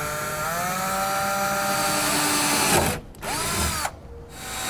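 Cordless drill with a quarter-inch bit drilling a hole, its motor whining steadily and rising slightly in pitch as it speeds up. It stops about three seconds in, gives a short burst, pauses, and starts again near the end.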